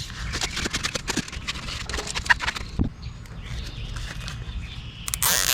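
Close handling noise from fitting protective abrasion sleeving onto a hydraulic hose: a run of light clicks and rustles, then a short hissing scrape near the end.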